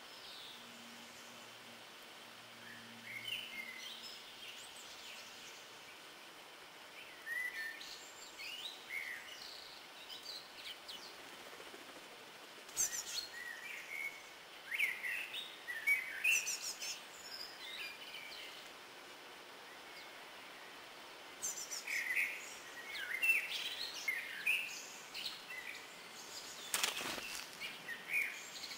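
Small songbirds chirping and calling in short, scattered bursts, with a few sharp clicks among them.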